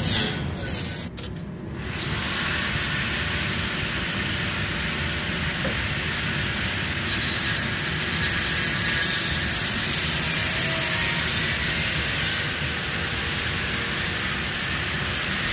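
TIG welding arc hissing steadily as the rods of a grill grate are welded to its frame. There is a short lull about a second in, and it runs steadily from about two seconds in.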